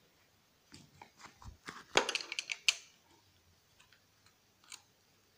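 Screwdriver clicking and scraping on screw heads in a turntable's top plate. A burst of sharp clicks runs from about one to three seconds in, loudest around two seconds, then a few faint ticks.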